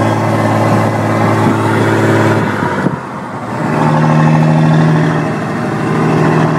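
2006 Dodge Ram's 5.9 Cummins common-rail turbo-diesel, heard from inside the cab while driving, breathing through a single uni stack. A steady engine drone pulls, drops away briefly about two and a half seconds in as a gear is shifted, then pulls again louder at a higher pitch.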